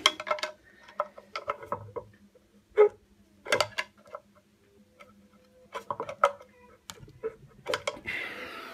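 Flat screwdriver prying a locking lug out from beside the axle nut on a Ninebot One wheel's aluminium axle plate: irregular metal clicks and taps, with a longer scrape near the end.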